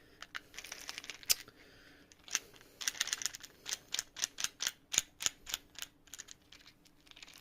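Pieces of a 3D-printed plastic brain-teaser puzzle clicking and tapping together as they are handled, in quick irregular clicks, several a second at the busiest and thinning out near the end.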